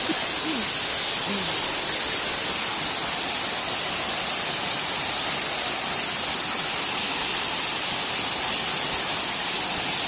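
Waterfall pouring into a rocky pool: a steady, even rush of water.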